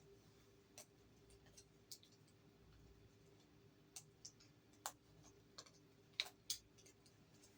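Near silence: room tone with a faint steady hum and a few scattered sharp clicks at irregular intervals, the loudest two close together about six seconds in.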